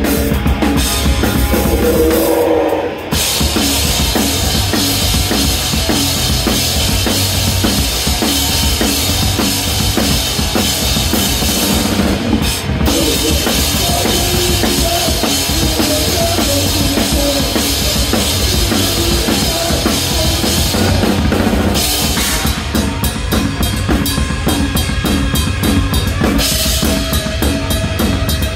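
Drum kit played hard in a live band performance, close to the drums: steady bass drum and snare under a constant wash of cymbals. There is a short break about three seconds in, and near the end the wash gives way to separate, evenly spaced hits before the full beat comes back.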